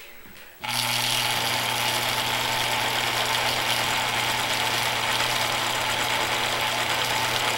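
The electric motor of a rod-building lathe switches on abruptly about half a second in, then runs steadily with a low hum and hiss as it turns the chucked rod blank.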